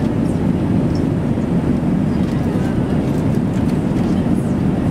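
Steady low rumble of an Airbus A380 cabin in flight: airflow and engine noise heard from an economy seat.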